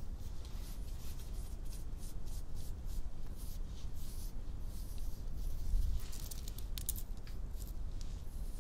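Hands rubbing and scratching close to the microphone: a run of short, soft strokes of skin and fingernails, thicker for a moment about six seconds in, over a low steady hum.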